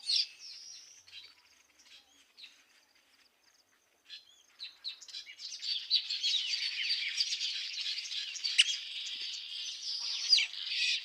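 A flock of small birds chirping and chattering in their nesting tree, many calls overlapping. The chorus is faint at first, nearly stops for a few seconds, then comes back dense and steady about halfway through.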